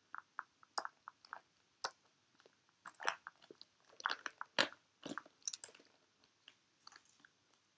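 A clear strap being clipped onto a holographic plastic shell-shaped handbag: scattered crinkles of the shiny plastic and small clicks of the strap's clasp.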